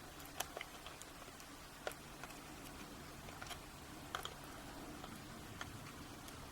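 Faint, scattered light clicks and taps of small metal padlock parts being handled, about eight in all at uneven intervals.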